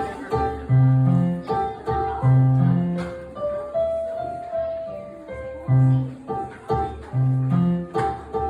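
Instrumental music: a simple tune played note by note over held bass notes, in an even beat.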